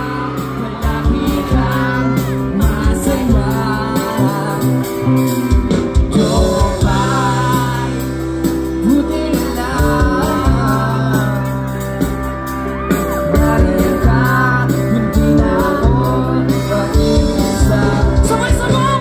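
Live band playing a song with a lead singer over held bass notes and drums.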